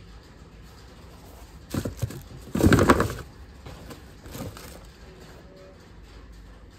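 Tissue paper and a cardboard shoebox rustling as a football boot is handled and lifted out: two loud bursts of crinkling about two and three seconds in, and a softer one a little later.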